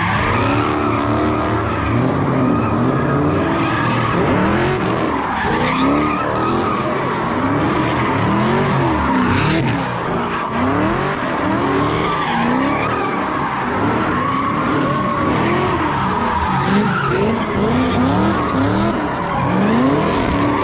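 Dodge Charger doing donuts: the engine revs up and down every second or so while the rear tyres squeal steadily as they spin on the pavement.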